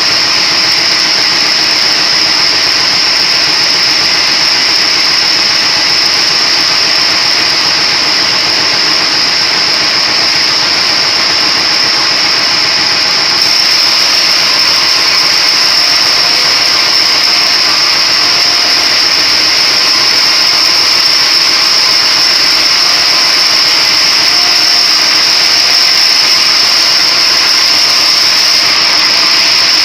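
Splitting machine running steadily and loudly, a constant high-pitched whine over a dense mechanical din.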